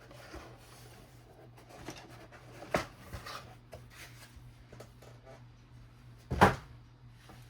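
A plastic model kit box and its contents being handled: light rustling and small clicks, a sharp knock just under three seconds in and a louder thud about six and a half seconds in.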